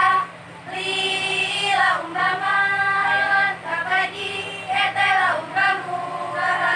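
A group of girls singing a Saman dance chant in unison, in long held notes with short breaks between phrases.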